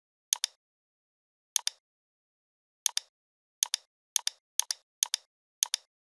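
Computer mouse button clicks, each a quick press-and-release pair, about eight in all, irregularly spaced and coming faster in the second half, with dead silence between.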